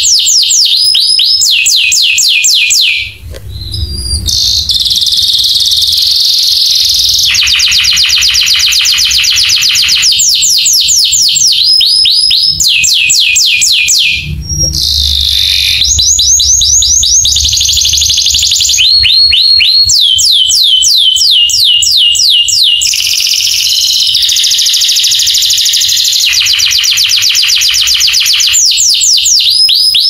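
Domestic canary singing a long, continuous song: rolls of rapid, quickly repeated notes alternating with buzzier held passages, broken by brief pauses about three and fourteen seconds in.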